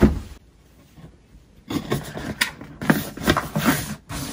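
Large cardboard mailer box handled and opened by hand. It lands with a thump at the start, goes quiet for about a second and a half, then its lid gives a run of cardboard scrapes and rustles as it is lifted.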